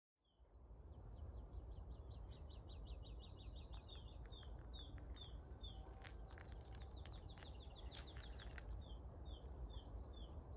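Small songbirds singing: quick series of short, high, downslurred notes that speed up into fast trills, with a second bird's higher notes in between, over a faint low steady rumble. A few faint clicks come about six to eight seconds in.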